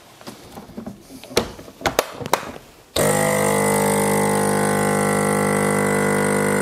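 Plastic vacuum bag rustling and the lid of a CASO vacuum sealer clicking shut. About three seconds in, the sealer's vacuum pump starts and runs with a steady, even hum, drawing the air out of the bag.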